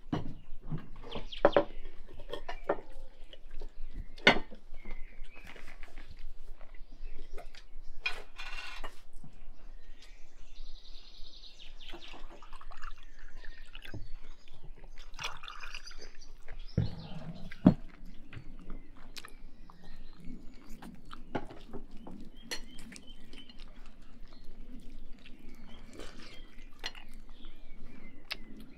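Glass jars and drinking glasses clinking and knocking on a wooden table, with fruit compote poured from a large glass jar into glasses; about ten sharp clinks scattered throughout.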